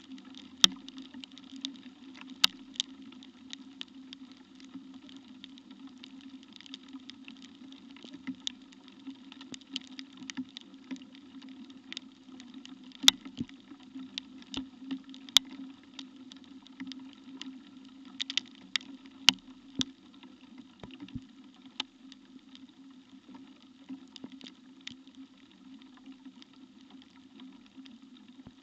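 Rain falling: irregular ticks of raindrops, a few of them much louder and sharper, over a steady low hum.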